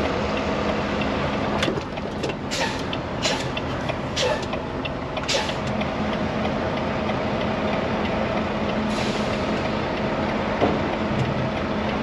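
Volvo semi-truck engine running low and steady, heard from inside the cab as the truck creeps and turns. Several short hisses come in the first half, with a longer one about nine seconds in.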